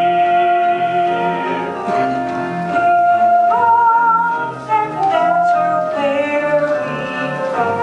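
Musical-theatre song: singing over instrumental accompaniment, with the voices holding long notes.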